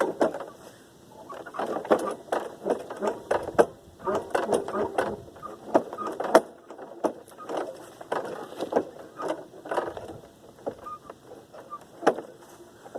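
Repeated rattling pulls on the recoil starter of a 2007 Snapper self-propelled mower, several attempts a second or two long with short pauses between, as the frozen engine turns over without running.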